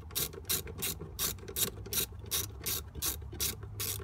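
Socket ratchet wrench with a 13 mm socket clicking in a steady run, about four clicks a second, as it is worked back and forth to loosen the nut holding a battery fuse block.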